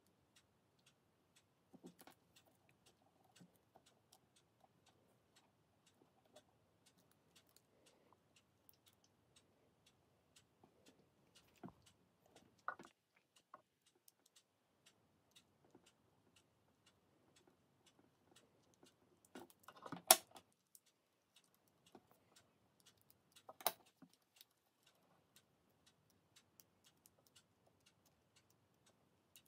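Faint, scattered small clicks and taps of a precision screwdriver and a metal band screw working at a Casio Pro Trek PRG-240's case lug while the resin band is fitted back on. A few sharper clicks stand out, the loudest about twenty seconds in and another a few seconds later.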